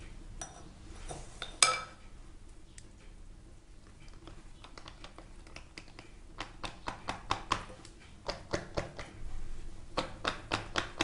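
One sharp knock about a second and a half in, then from about four seconds in a long series of quick taps, several a second, as a silicone cake mould full of batter is tapped and shaken on the counter.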